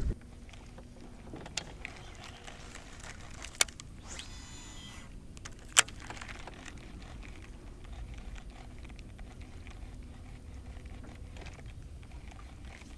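Quiet handling of a baitcasting rod and reel: a few sharp clicks, and about four seconds in a brief whir from the reel as a jig is cast, then soft ticking as the line is worked.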